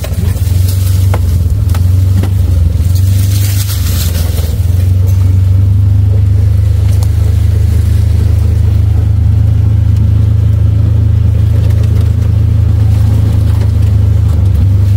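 Vehicle engine and drivetrain droning steadily at low pitch while driving slowly along a rough trail, with a few light knocks and rattles in the first few seconds.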